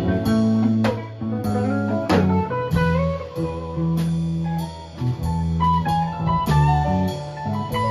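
Live band playing an instrumental passage: electric guitar picking a lead line of single, partly sliding notes over held electric bass notes, keyboard and drums, with cymbal strikes every second or so.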